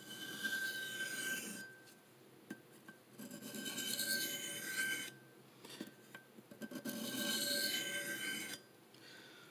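A CPM M4 steel knife blade scraping along a 600-grit sharpening plate in three rasping passes, working to remove a stubborn burr from a very fine edge.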